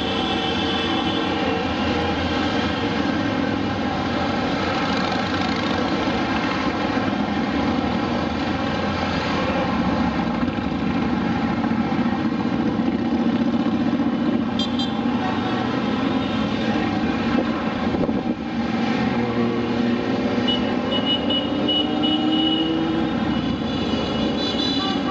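A steady stream of motorcycles riding past at parade pace, many engines running together into one continuous loud sound without a break.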